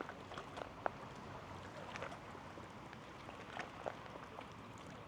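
Quiet outdoor ambience: a faint steady hiss with a few light, irregular taps and clicks scattered through it.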